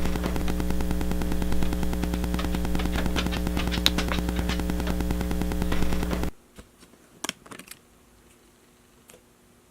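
Wi-Fi interference picked up by a Rode VideoMic Go, the camera's Wi-Fi being switched on. It is a loud buzzing hum laced with rapid clicking and thumping. It stops abruptly about six seconds in, leaving low hiss with a few faint clicks.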